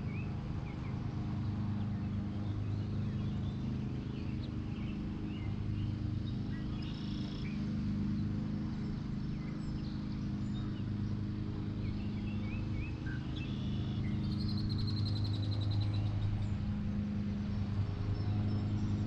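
Birds chirping now and then in short calls, with a rapid high trill about three-quarters of the way through, over a steady low hum.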